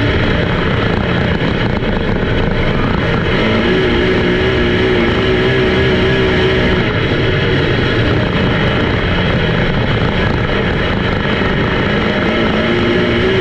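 Race car engines running hard on the track, a loud, steady roar with an engine note that wavers in pitch a few seconds in and again near the end.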